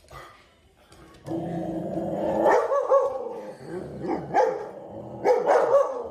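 A dog barking and growling in a run of wavering, pitched calls that starts about a second in, with several louder outbursts.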